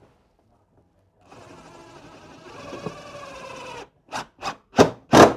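A small motor runs steadily for about two and a half seconds, its pitch sinking slightly, then stops. Four sharp knocks follow in quick succession, each louder than the last.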